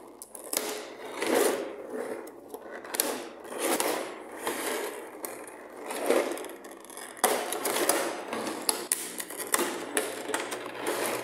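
Thin clear plastic blister tray crinkling and crackling as it is handled and pried open by hand, in uneven waves of crackles and clicks, with a sharper snap about seven seconds in.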